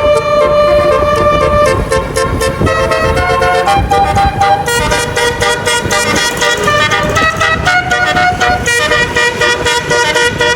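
Basuri multi-tone musical air horn on a tour bus playing a telolet melody, loud, stepping from note to note and quickening about halfway through, over engine and traffic noise.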